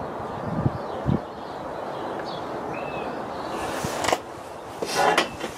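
Handling noise at the rifle bench: a few dull knocks, then a sharp click about four seconds in and a brief rustling scrape near the end, the loudest moment.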